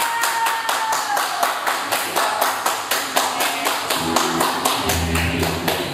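Hand-struck frame drums beaten in a fast, even pulse of about five strokes a second. A high held note sounds over the first second, and low sustained notes come in near the end.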